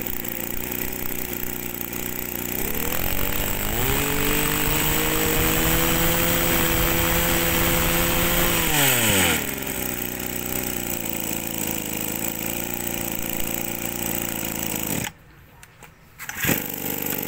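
Kioritz 21cc two-stroke brush cutter engine running. It idles, is revved up to high speed for about five seconds, and drops back to idle. About 15 seconds in it stops suddenly, and a second and a half later it is started again and idles.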